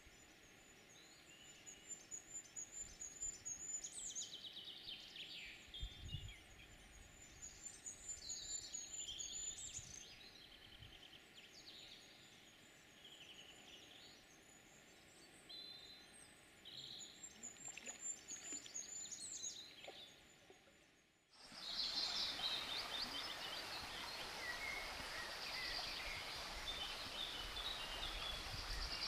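Songbirds singing and calling, with a high trill repeated every few seconds among scattered chirps. About two-thirds of the way through, the sound breaks off and gives way to a louder steady hiss with more bird calls over it.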